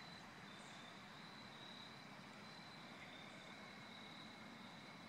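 Chorus of crickets: several faint, high, steady trills overlapping at slightly different pitches.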